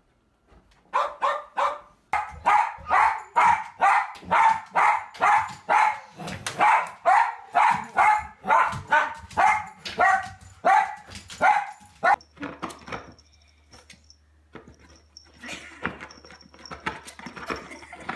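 A dog barking over and over in an even series, about two barks a second, for some ten seconds, then stopping; softer scattered sounds follow.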